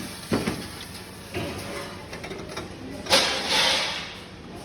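Mechanical knocks and clunks: two close together near the start, one more about a second later, and the loudest about three seconds in, followed by about a second of rushing noise.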